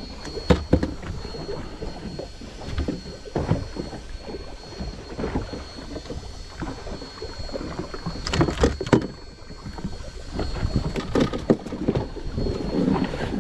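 Wind and water noise around a small drifting fishing boat, with irregular knocks and clatter on the fibreglass deck as a netted red snapper and the landing net are handled. The sharpest knocks come about half a second in and twice around eight to nine seconds in.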